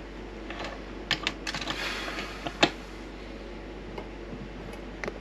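A quick run of small clicks and taps from handling small tools and parts at a workbench, the loudest about two and a half seconds in, over a steady low hum.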